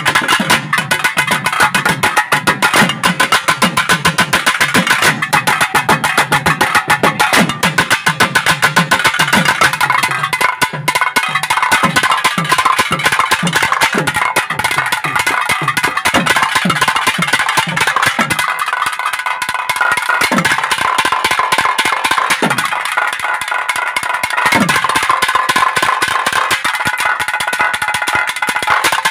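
Naiyandi melam folk ensemble playing: thavil drums in fast, dense strokes with deep drum tones that fall in pitch. A steady held high note runs underneath. After about eighteen seconds the deep strokes thin to a few single hits and the held note comes forward.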